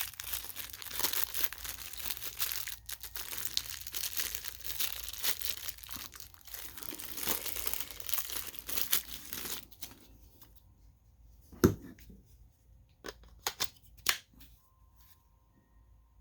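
Plastic packaging being crinkled and torn open by hand for about ten seconds, then a handful of sharp clicks and knocks as the unpacked parts are handled.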